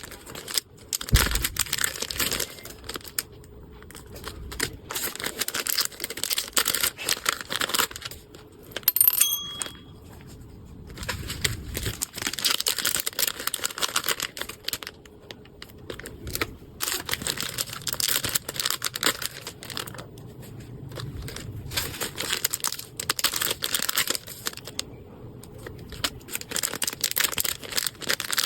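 Packaging being unwrapped by hand: crinkling and tearing in repeated stretches with short pauses, and a brief high ring about nine seconds in.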